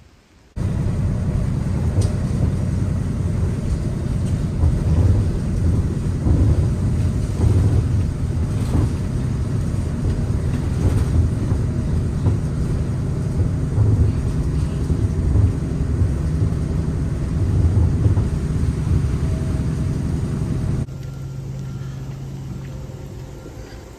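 Low, steady rumble of a vehicle in motion, starting abruptly about half a second in. Near the end it cuts to a quieter, steady hum.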